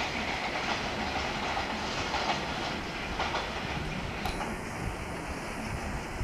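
Freight train wagons rolling along the track with a steady rumble, their wheels clacking over rail joints every second or so.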